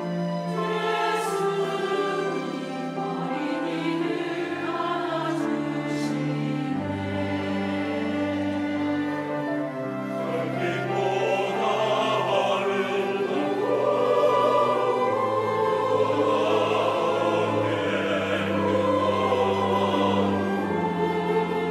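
Mixed church choir singing a Korean hymn in parts, with two cellos sustaining long low notes beneath. The singing grows fuller and a little louder about ten seconds in.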